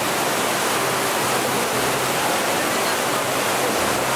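Waterfall: water falling and rushing, a steady, even noise that does not change.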